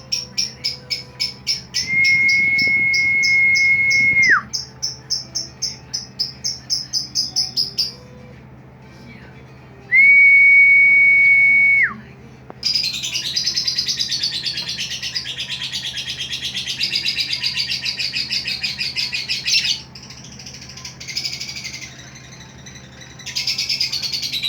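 Recorded songbird calls from a birdkeepers' training track of a female bird's 'dry' call: a fast run of short high chirps, two long steady whistles that drop at the end, then dense high trilling.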